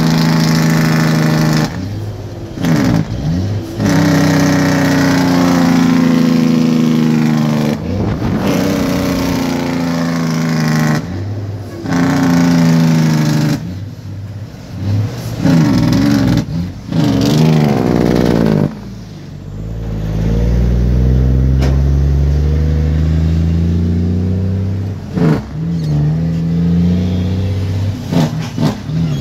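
Heavy truck's diesel engine heard inside the cab as the driver works through the gears of its manual gearbox: the engine pulls, cuts off briefly at each shift and comes back at a new speed, with short revs in between shifts, about eight times.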